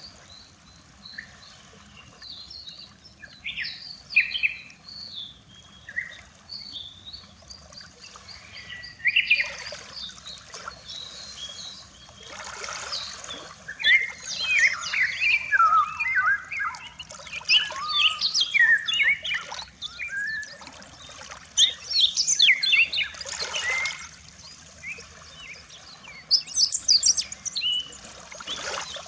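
Many small birds chirping and singing in quick, overlapping calls, with small waves washing onto the shore every few seconds.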